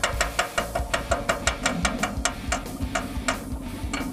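Underwater wet stick-welding with a waterproofed 7014 rod: a steady hum from the welding arc comes in just under two seconds in. Under it runs an even ticking, about four to five ticks a second, which stops shortly before the end.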